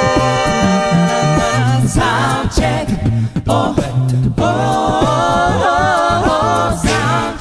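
A cappella vocal group singing wordless harmonies over a sung bass line and a beatboxed beat: held chords at first, then moving upper vocal lines from about two seconds in.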